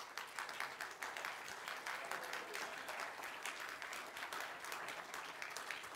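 Congregation applauding: many hands clapping in a dense, steady patter.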